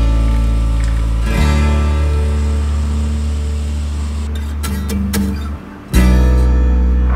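Background music of strummed acoustic guitar chords, with the chord changing a couple of times and a short drop in level before the last change.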